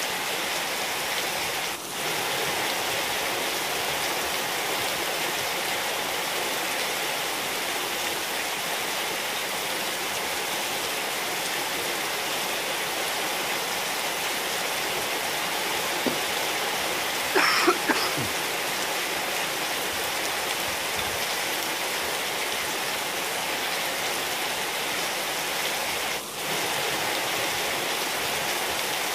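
Steady rain falling on a wet tiled courtyard and potted plants, an even hiss of countless drops. A little past the middle, a brief cluster of sharp sounds stands out above the rain as the loudest moment.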